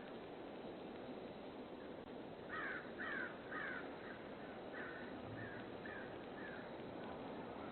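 A bird calling about ten times in a row, roughly two calls a second, the first three loudest and the rest fading, over a steady hiss from a Ring doorbell microphone.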